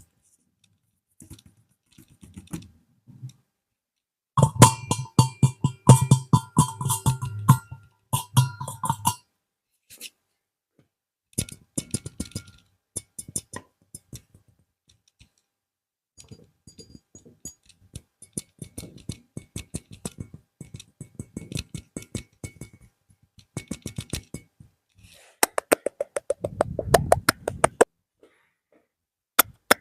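Close-up ASMR tapping and scratching: rapid runs of sharp taps, some with a short ringing tone, in bursts separated by sparser clicks and brief pauses.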